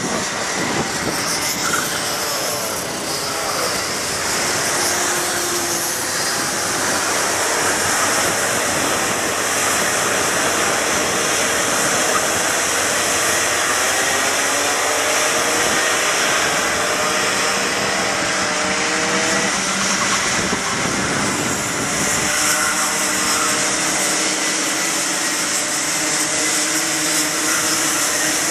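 A pack of two-stroke racing karts running on a circuit, many engines buzzing together in a steady mass. Individual engine notes rise and fall as the karts accelerate and brake through the corners.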